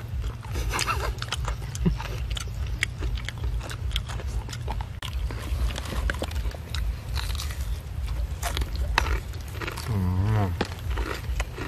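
Biting into and chewing crispy fried chicken: irregular crunches and crackles of the coating with wet mouth sounds, and a brief murmuring voice about ten seconds in.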